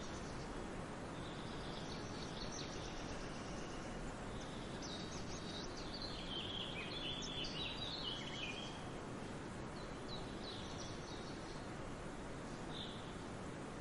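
Small birds chirping in short high-pitched bursts, busiest around the middle, over a steady outdoor background hiss.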